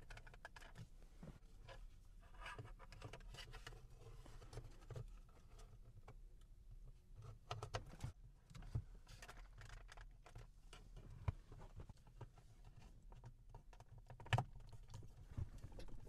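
Light plastic clicks and handling noises of hands fitting a dash cam's plastic housing over the rear-view mirror mount, with two sharper snap-like clicks, the louder one near the end.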